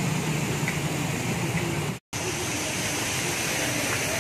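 Flooded-street ambience: a steady hiss of water with the low hum of motorbike engines wading through, broken by an abrupt cut about halfway through.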